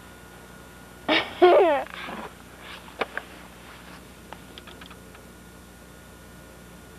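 A high-pitched voice calls out once about a second in, its pitch falling, followed by a couple of sharp clicks.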